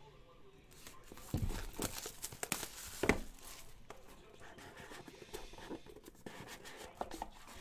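Plastic shrink wrap being slit and peeled off a sealed trading-card box: crinkling and tearing, with two knocks of the box being handled, about one and a half and three seconds in.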